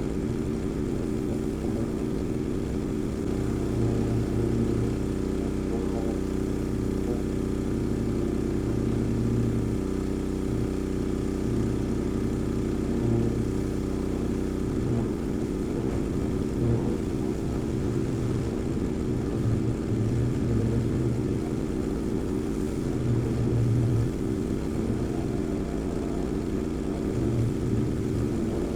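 Magnum 4000 Gold hot-water pressure washer running with its engine under steady load. The engine note is smooth and even until about halfway through, then turns rougher and uneven.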